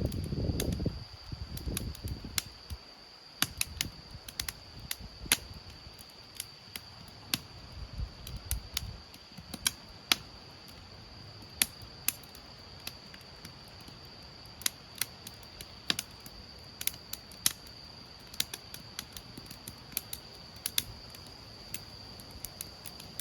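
Sparse rain drips tapping irregularly, a few sharp ticks each second, over a thin steady high tone. A low rumble fades out in the first couple of seconds.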